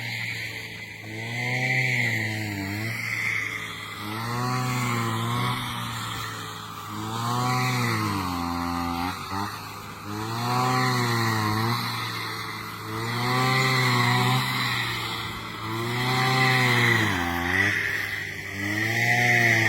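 Brush cutter engine revving up and falling back in a regular cycle, about once every three seconds, while cutting rice stalks.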